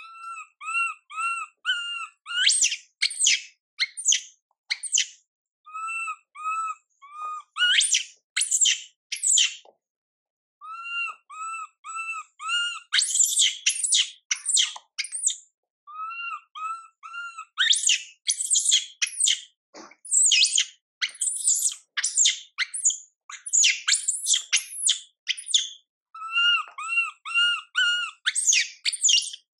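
Baby macaque crying in distress: runs of four or five short, arched, high whimpering calls alternate over and over with longer, harsher high-pitched screams.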